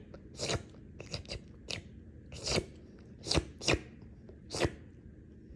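A run of crunching sounds, like something dry being chewed: about eight sharp crunches at uneven intervals, some in quick pairs.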